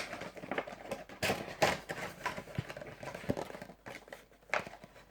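Handling of a boxed Funko Pop vinyl figure and its clear plastic case: irregular taps, clicks and short rustles of packaging, strongest about a second and a half in and again near the end.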